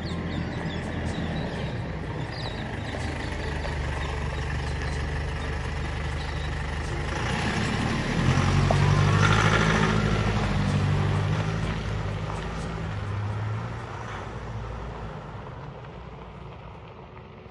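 A large motor vehicle's engine running with a low steady drone, growing louder about eight seconds in and fading away near the end.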